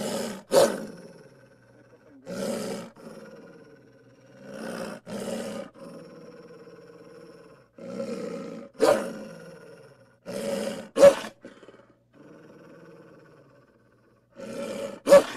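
A cartoon wolf's growls and snarls: about ten short, separate bursts, each under a second, grouped in twos, with pauses of a second or more between the groups.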